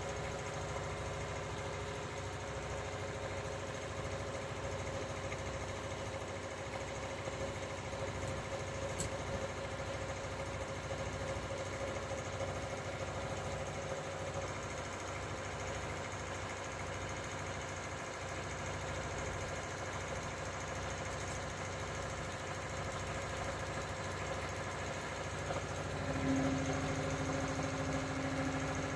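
An engine idling steadily, with a steady hum joining near the end.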